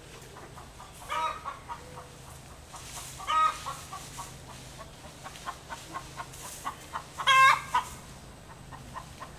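A hen's egg song: a run of short clucks broken by three loud, drawn-out cackles, the call a hen gives to announce she has just laid an egg.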